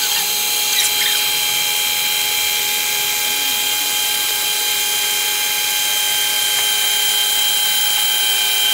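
Electric kitchen mixer running steadily on high speed, a constant motor whine, as it beats eggs and sugar together.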